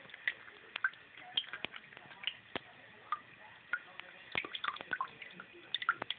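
Cat lapping water from a thin stream trickling off a finger under a sink faucet: irregular small wet clicks, about three a second, over a faint hiss of running water.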